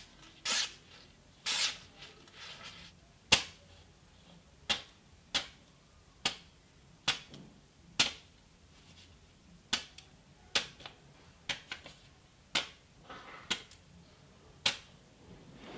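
Freshly sharpened Japanese kitchen knife slicing through a hand-held sheet of paper, a quick crisp snick with each of more than a dozen cuts about once a second: a paper-cutting test of the restored edge's sharpness.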